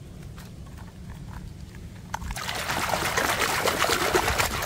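Hand swishing and scrubbing a toy car in shallow pond water, a steady splashing and sloshing that starts about two seconds in.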